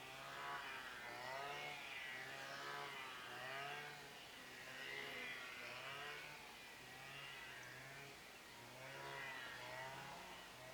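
Brushcutter engine running, its pitch rising and falling in a repeating wave about once a second as the throttle is worked and the head swings through grass.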